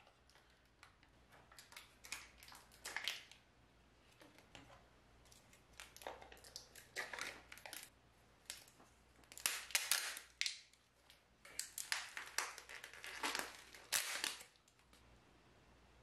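Thin plastic lids being peeled off small disposable sauce and pickle cups: crinkling plastic with sharp clicks and light knocks as the cups are handled and set down, busiest in the second half.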